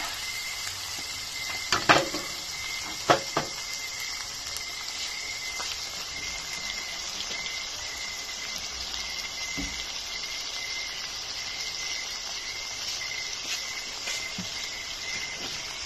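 Ground meat and sliced hotdogs sizzling steadily in oil in a wok. A few sharp clacks of the metal spatula against the pan come about two and three seconds in.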